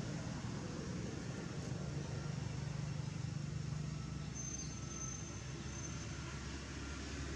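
Steady low background rumble of the outdoors, with a faint thin high tone for about two seconds in the middle.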